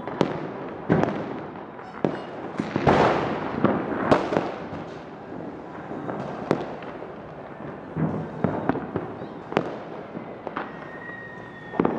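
Diwali firecrackers and fireworks going off around the town: irregular sharp bangs, some loud and some fainter, over steady crackling, with a dense cluster of bangs about three seconds in.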